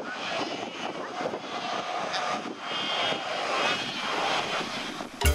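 Dense din of a Cape fur seal colony, many seals calling over one another with short pitched cries, mixed with surf washing over the rocks.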